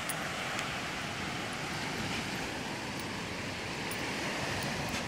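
Steady wash of ocean surf breaking on the beach, with a few faint clicks.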